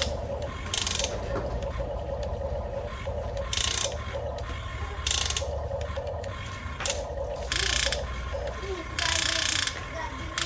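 Toy RC excavator's small geared motors running with a ratcheting, gear-driven buzz, broken by short harsh bursts of noise every second or two.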